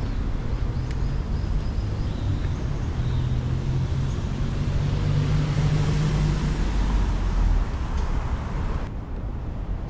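A car driving by on the street: low engine hum and tyre noise that swell to a peak about six seconds in, then fade, over a steady low traffic rumble.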